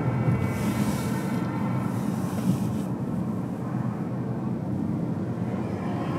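Steady road noise of a car driving on city streets: a low rumble of tyres and engine. About half a second in, a higher hiss swells for about two seconds and fades.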